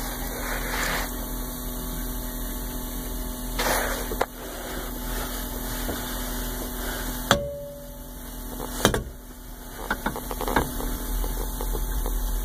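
RCA Victor car record player's mechanism running with the music stopped: a steady motor whir, a sharp click about seven seconds in and another a second and a half later, then a few lighter clicks.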